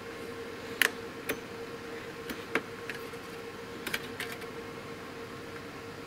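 Sharp plastic-and-metal clicks and knocks as a memory module is worked loose and pulled out of its slot on a server's memory board: about seven clicks spread over the first four seconds, the loudest about a second in. A steady hum runs underneath.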